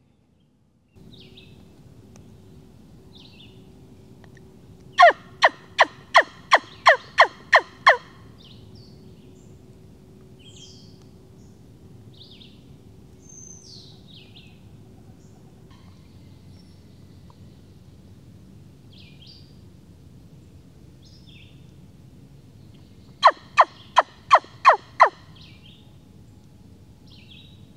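Turkey call worked at the lips by a hunter calling a tom, giving two runs of yelps: about nine sharp, evenly spaced notes about five seconds in and about six more near the end, each note dropping in pitch. Songbirds chirp faintly in between.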